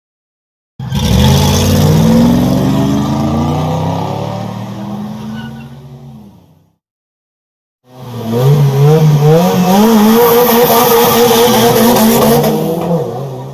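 Car engine sound effect in two takes: the first starts abruptly about a second in, then fades away over several seconds; the second starts about eight seconds in, its pitch rising in steps as it accelerates, holding, then dropping near the end as it fades.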